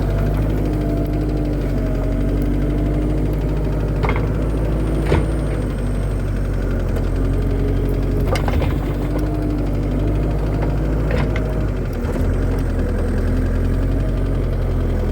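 New Holland L218 skid steer's diesel engine running under working load, its pitch wavering as the machine digs, with several sharp clanks scattered through.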